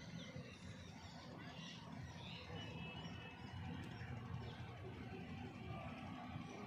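Faint outdoor background: a steady low rumble with a few short, high bird chirps.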